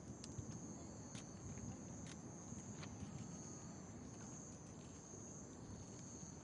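Night insects chirring steadily at a high pitch over a low background rumble, with a few faint clicks.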